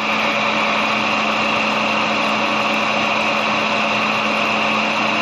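TOS FA3V milling machine running, its spindle driving a small end mill taking light cuts in steel flat bar. The sound is a steady hum with a high whine over it.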